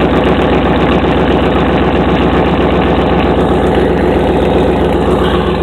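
Dodge 318 (5.2 L) V8 idling during its cold-start warm-up, heard right at the tailpipe: a loud, steady exhaust note with an even, rapid pulse.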